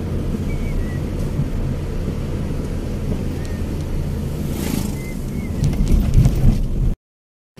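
Car interior noise while driving on a country road: a steady low rumble of engine and tyres, growing louder and more uneven near the end.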